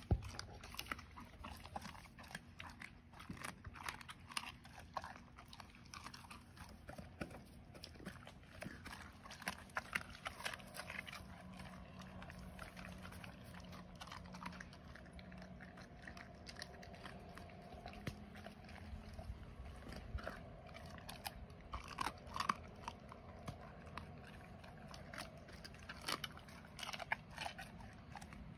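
A wolf chewing and biting on food, with many short, sharp crunching clicks. A faint low hum runs for several seconds midway.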